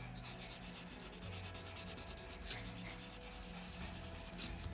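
Faint scratchy rubbing of a colored pencil shading on paper in repeated short strokes.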